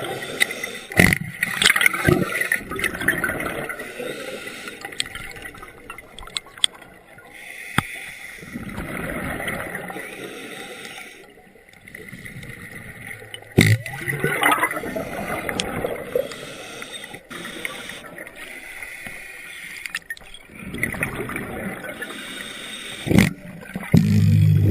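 Underwater scuba sound: a diver's regulator exhaust bubbles gurgling in swells every few seconds, with a few sharp knocks in between.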